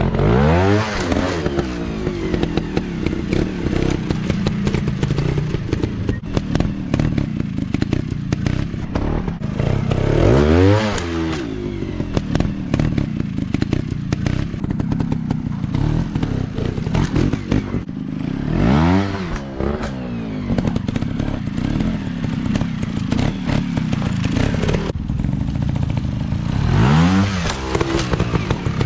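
Small trail dirt-bike engines running, with the engine note rising sharply and falling back four times, about every eight seconds, among scattered clattering knocks.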